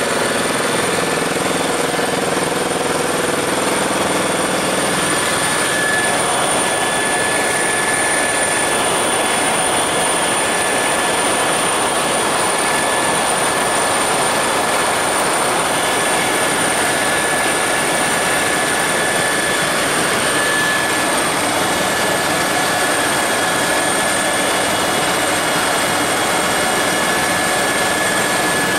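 Helicopter in cruise flight heard from inside the cabin: a loud, steady rush of rotor and engine noise carrying two thin, steady high whines. A lower hum fades out about five seconds in.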